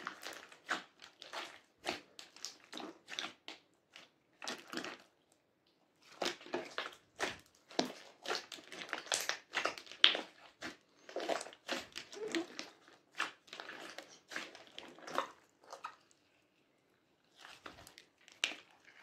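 Hands squeezing, folding and stretching a lump of sticky blue and purple slime with small foam beads in it: irregular wet clicks, pops and crackles, with two brief pauses, about five seconds in and again near the end.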